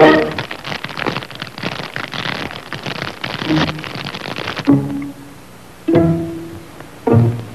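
Orchestral cartoon score. A loud sharp chord opens it, followed by about four and a half seconds of dense rattling noise, then a few short plucked and bowed low string notes.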